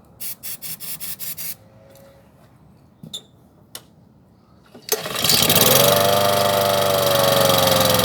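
Petrol rotary lawnmower engine starting about five seconds in and running loud, its pitch rising and dipping unsteadily rather than holding even. Before it, a quick run of about seven short noises and a couple of clicks.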